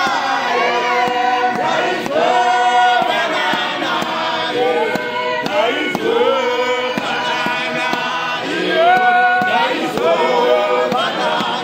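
A group of men singing a Shona hymn together in harmony, several voices at once on long held notes that slide between pitches.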